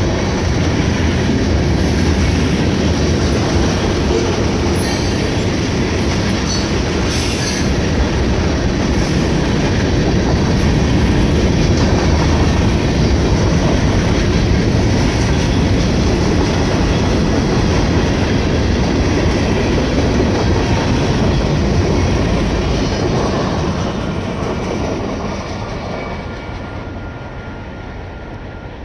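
Freight train cars, tank cars and covered hoppers, rolling past over a level crossing: a steady, loud noise of wheels on rail. It fades away over the last five seconds or so as the end of the train passes.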